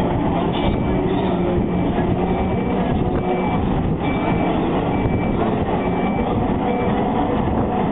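Recovery telehandler's engine running steadily while its warning beeper sounds a short high beep about once every 0.85 seconds, eight times, stopping near the end.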